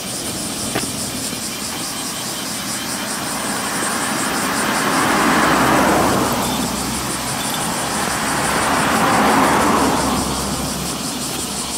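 Two cars passing on the road alongside, each rising to a peak and fading away: the first about six seconds in, the second about three and a half seconds later.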